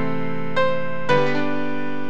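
Piano playing slow, sustained chords, with new notes struck twice about half a second apart.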